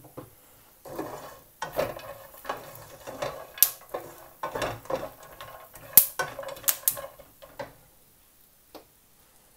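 A wooden spatula stirs almonds, cashews and walnuts being roasted on low heat in a non-stick frying pan. The nuts make an irregular scraping and rattling, with a few sharp clicks as they knock against the pan. The stirring stops about eight seconds in.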